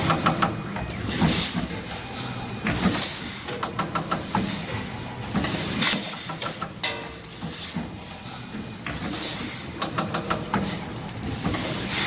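Automatic iron key cutting machine running through its cycle: repeated hisses of compressed air from its pneumatic cylinders, about every two seconds, with quick clicks and clacks of the feeding and cutting mechanism over a steady machine hum.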